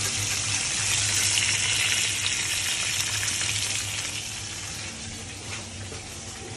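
Fish fillets frying in hot oil in a cast iron pan, a steady sizzle that weakens about four seconds in.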